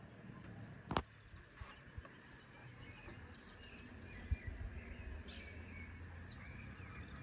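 Birds chirping faintly outdoors, with a sharp click about a second in and a dull thud a little after four seconds.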